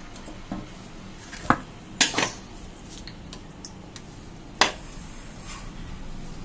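Stainless steel idli-pot lid and idli plates clanking against each other as they are handled: a few sharp metal knocks, the loudest a second and a half, two and four and a half seconds in.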